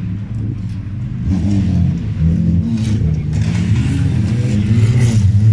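Old hatchback wreck-race cars' engines revving hard on a dirt track, the pitch rising and falling through the gears and growing louder as the cars approach.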